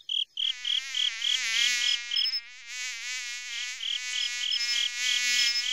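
Night cricket chirping in a steady rhythm of short, high chirps, about three to four a second. From about half a second in, a wavering, high buzzing tone sounds over the chirps.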